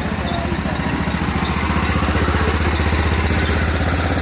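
BMW Isetta bubble car's small single-cylinder four-stroke engine running as the car drives past, with an even rapid pulse. It grows louder toward the middle as the car passes, then begins to ease.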